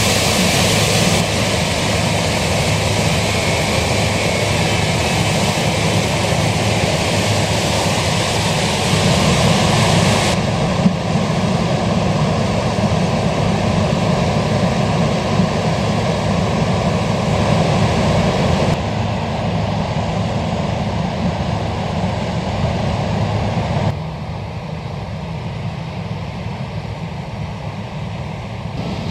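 Combine harvester running steadily while harvesting corn: a diesel engine drone with machinery noise over it. The sound changes abruptly several times, getting quieter near the end.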